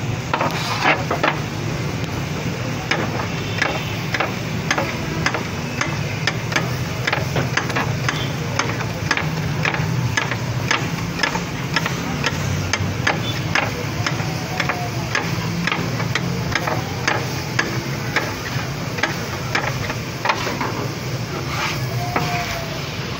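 Flat metal scraper blade chopping cooked chicken against a steel griddle, making repeated, irregular sharp clacks, a couple or more a second, over a steady low hum.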